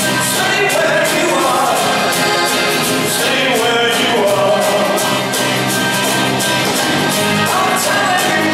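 Live acoustic rock band playing a song: several strummed acoustic guitars over a steady drum beat, with lead and backing voices singing, heard from the audience in a concert hall.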